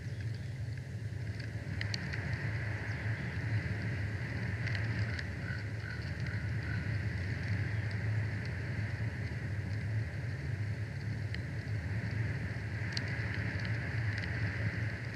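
Steady low rumble of wind on an outdoor microphone, with light rustling and a few faint clicks scattered through it.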